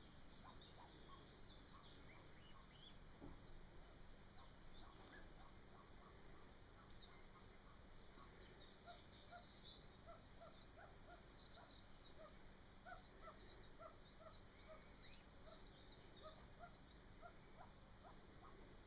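Golden pheasant chicks peeping faintly: many short, high chirps scattered throughout, joined from about six seconds in by softer, lower notes repeating roughly once or twice a second.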